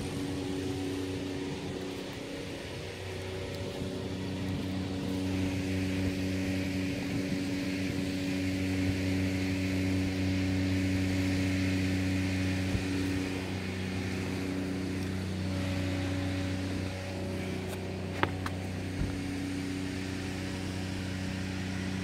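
An engine running steadily, a low, even hum that holds the same pitch throughout.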